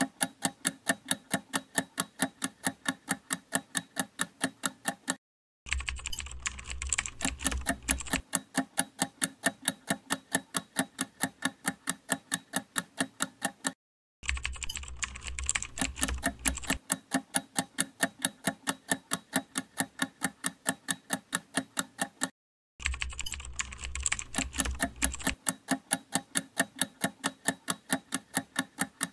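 Countdown-timer sound effect: a steady run of sharp, keyboard-like clicks, several a second, stopping briefly three times, with a low hum under the first couple of seconds after each restart.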